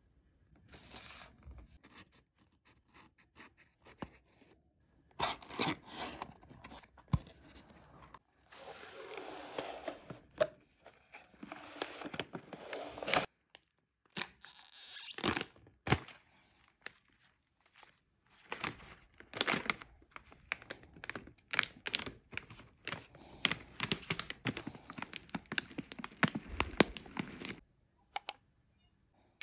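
Close-up handling sounds: tearing and crinkling of paper or packaging in several short swishes, then a long run of small clicks and knocks.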